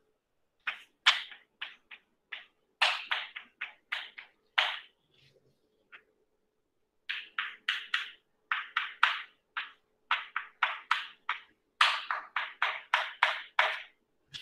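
Chalk writing on a blackboard: quick scratchy strokes and taps in clusters, with a pause of a second or two about halfway through. A faint steady hum sits underneath.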